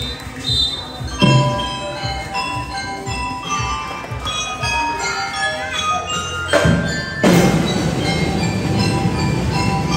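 A drum and lyre corps playing. Mallet-struck bar instruments ring out a melody of short, bright notes, then a low drum roll comes in about six and a half seconds in and the drums and bells play on loudly together.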